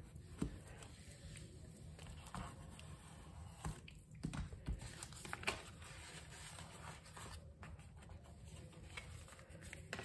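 Paper and card rustling and sliding as the pages of a handmade journal signature are pressed flat, lifted and turned over, with a few short taps and clicks.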